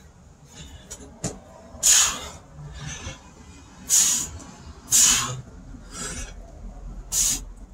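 A man's hard, rasping breathing while doing burpees with push-ups: several sharp, hissy exhales one to two seconds apart, the breath of someone out of breath from the exercise.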